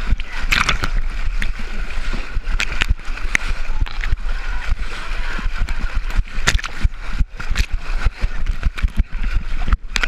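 Close, continuous splashing and sloshing of muddy water as a person crawls through a shallow water pit. Many sharp splats and clicks come from water hitting the waterproof GoPro housing.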